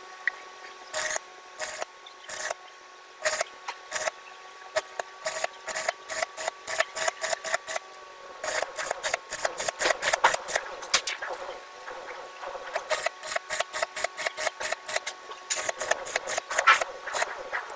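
Arc welding on a tie rod end: the arc crackles in short, repeated bursts over a steady hum as it is struck and broken in a run of stitch welds. The bursts come faster and closer together from about halfway through.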